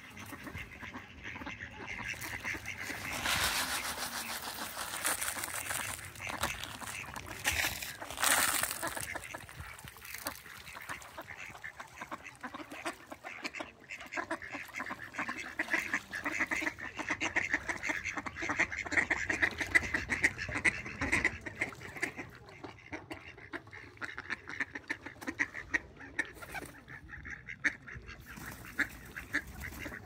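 Mallard ducks quacking over and over in rapid runs, busiest in the middle stretch. A rush of noise spread across all pitches fills the stretch from about three to nine seconds in.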